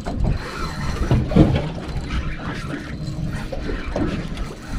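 Spinning fishing reel being cranked against a hooked fish, a rough mechanical whirring and clicking over a low steady rumble.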